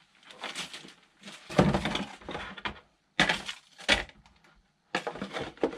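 Plastic packaging being handled: bags crinkling and hard plastic parts clattering, in several short bursts with pauses between.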